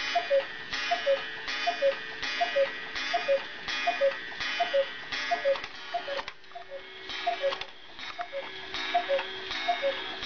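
Hand-carved German cuckoo clock calling: its bellows-driven two-note cuckoo, a higher note then a lower one, repeated over and over a little faster than once a second, each note with a light clack from the mechanism.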